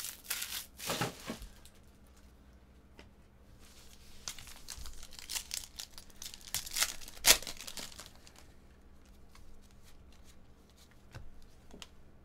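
Foil wrapper of a baseball trading card pack crinkling and tearing as it is ripped open, in irregular bursts, the sharpest rip about seven seconds in.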